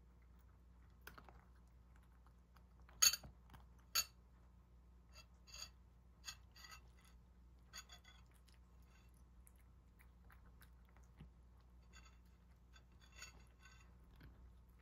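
A cat eating from a ceramic bowl: soft chewing and crunching of dry kibble mixed into its food, with scattered small clicks. Two sharper clicks about three and four seconds in are the loudest sounds.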